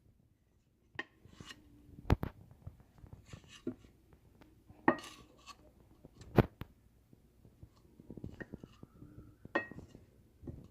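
Kitchen utensils and dishes clinking and knocking: a handful of sharp separate clinks with quieter handling sounds between them.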